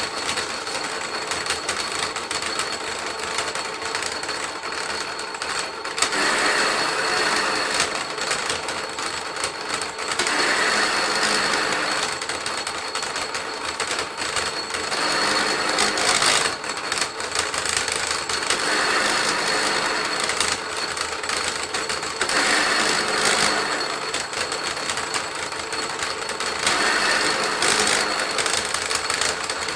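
Electric willow-rod splitting machine running steadily with a constant high whine, as willow rods are fed through one after another and split lengthwise into three or four strips. A louder stretch of about two seconds comes every four seconds or so as each rod passes through the cutters.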